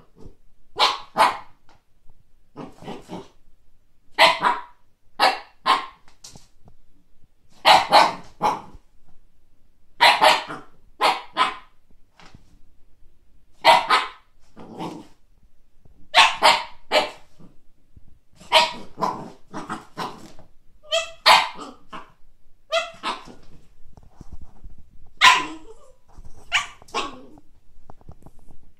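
Siberian husky puppy barking at a frisbee: short, high-pitched barks, often in quick pairs, repeating every one to three seconds.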